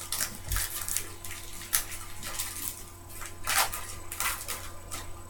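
Crinkling and rustling of a foil trading-card pack wrapper being handled and torn open, in a string of short irregular crackles.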